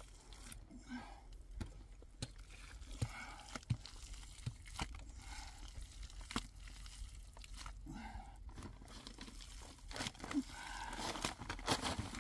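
Scattered crackling and rustling with sharp little clicks and knocks, as of dry material being handled, with faint voices in the background.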